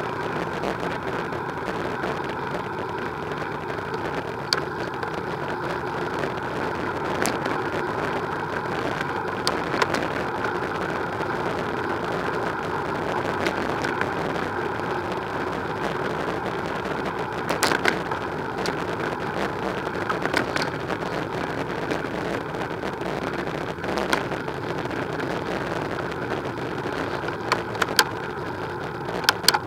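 Steady rumble of tyres on tarmac and wind while riding a bicycle, with a few sharp clicks and knocks scattered through, the loudest near the end.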